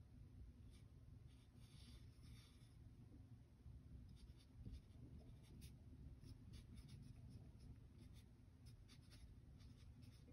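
Faint scratching of a wooden pencil drawing on paper, in many short, irregular strokes.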